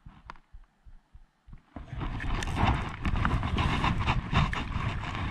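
Soft, low handling thumps, then about two seconds in a sudden loud, continuous rustling and scuffing of a jacket sleeve against the body-mounted camera as the angler sets the hook and reels in a bass on a spinning rod.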